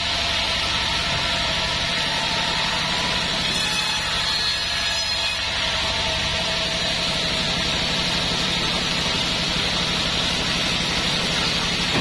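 Large vertical band sawmill running steadily: its drive hums and the spinning band blade gives a constant hiss, mostly running free between cuts. The low drone shifts about six seconds in.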